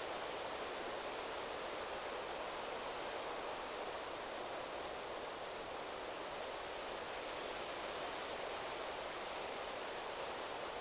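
Wind rustling through forest trees as a steady hiss, with faint, very high, thin chirps of small birds about two seconds in and again in the second half.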